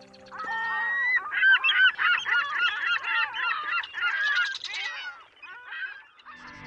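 A flock of birds calling, with many honking calls overlapping. The calling starts about half a second in, is densest in the middle and thins out near the end.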